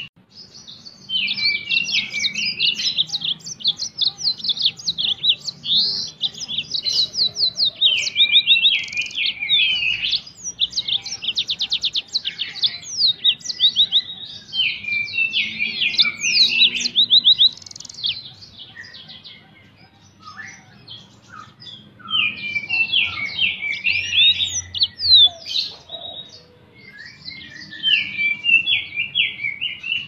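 Yellow-fronted canary singing its fast, varied, high twittering song in long unbroken phrases, which drops to scattered quieter notes for a few seconds after the middle and then picks up again.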